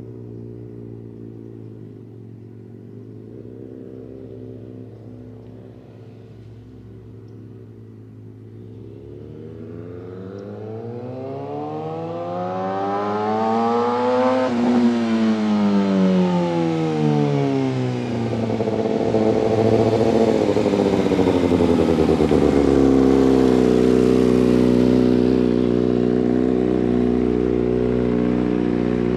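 2019 Kawasaki Ninja ZX-6R inline-four with a Hotbodies MGP slip-on exhaust. It runs at first at a lower level, then revs up, rising in pitch and growing louder as it comes in. About halfway through the pitch drops as the throttle is rolled off, and after one more short blip it settles into a steady, loud idle close by.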